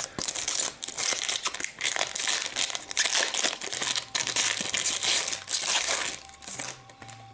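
Foil wrapper of a 2009-10 Fleer Ultra hockey card pack being torn open and crumpled by hand: a dense run of crinkling and crackling that dies down about six seconds in.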